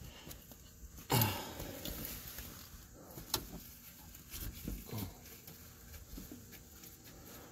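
Faint, scattered clicks and scrapes of a thread tap being turned by hand and backed out of a freshly cut spark plug hole in an aluminum cylinder head. There is a louder short rustle about a second in.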